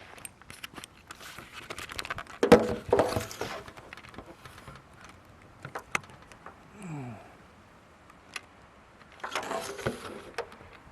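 Scraping, rustling and clattering of a metal rake and pole being worked through the brush and water at the canal bank, with scattered clicks and two louder noisy bursts, about two and a half and nine seconds in.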